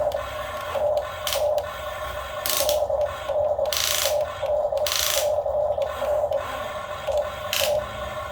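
Small electric motors of an RC toy excavator whirring in pulses about twice a second. Several short scraping or hissing noises come over it, the loudest about 4 and 5 seconds in.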